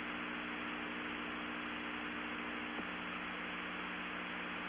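Steady hiss with a low electrical hum on an open radio commentary audio line carrying no voice.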